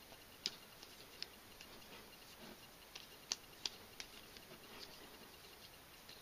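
A karambit knife being flipped and spun around the finger ring, giving a handful of sharp, faint clicks at irregular intervals, the loudest a little past three seconds in.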